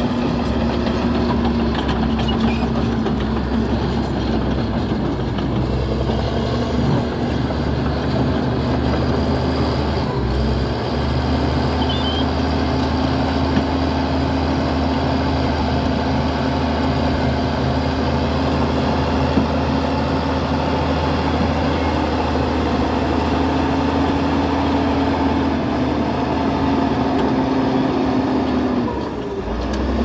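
Heavy diesel earthmoving machinery running steadily, a continuous engine drone that dips briefly near the end.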